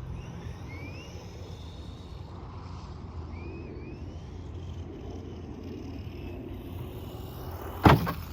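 Steady low outdoor rumble with a few faint short rising chirps, then one sharp thump near the end.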